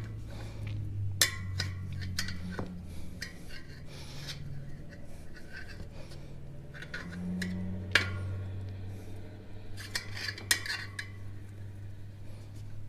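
Metal tire irons clinking and scraping against a spoked dirt bike rim as the tire bead is levered over it, with a few sharp metallic clicks among the rubbing.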